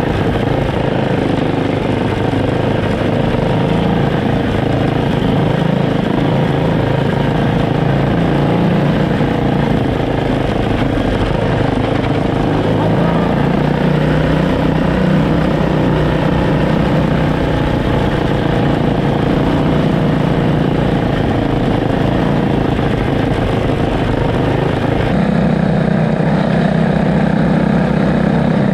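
Twin 212cc Tillotson single-cylinder engines of a homemade go-kart running steadily under throttle while it drives a dirt trail. The engine note changes about 25 seconds in.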